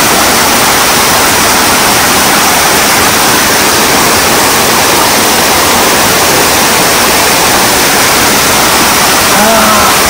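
Waterfall pouring: a loud, steady rush of falling water.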